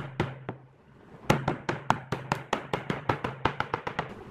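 Claw hammer tapping thin wooden strips into grooves in a wooden tabletop: a few sharp blows, a short pause, then a quick, even run of taps, about five a second.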